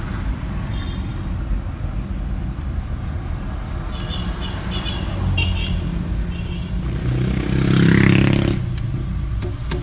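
Cabin noise in a moving car: a steady low engine and road rumble. About eight seconds in, a louder engine note swells up, rises in pitch and fades, as a vehicle passes close by. A few short, high chirps come and go in the middle.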